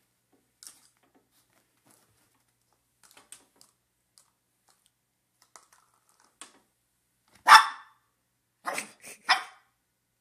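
Papillon barking: one loud, sharp bark about seven and a half seconds in, then a quick burst of two or three more barks a second later.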